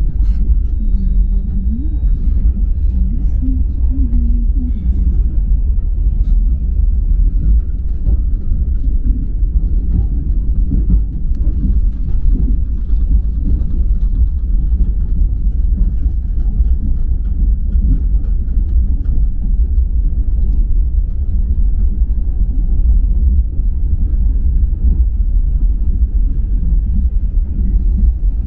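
Steady low rumble of a moving passenger train heard from inside the carriage, its wheels running on the rails.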